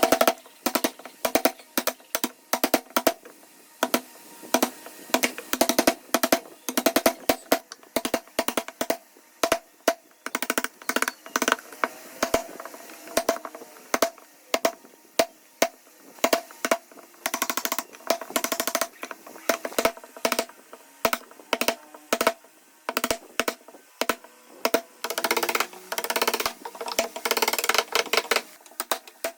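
Wooden knocks and taps in an irregular run, each hit ringing briefly, typical of a mallet striking wooden joinery pieces; a few seconds before the end the knocks give way to a stretch of continuous rasping.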